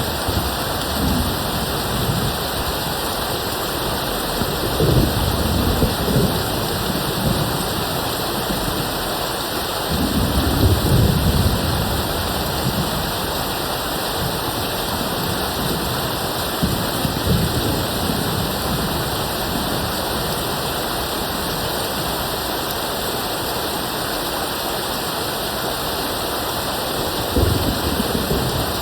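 Steady rain with three low rumbles of distant thunder. The longest and loudest rumble comes about a third of the way through.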